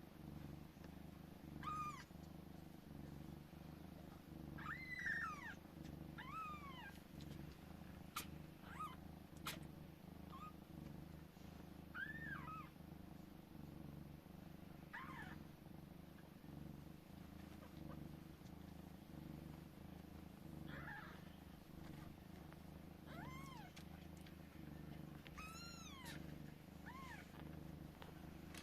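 Kittens purring steadily, with short high mews that rise and fall scattered throughout, several close together near the end, and a few sharp clicks.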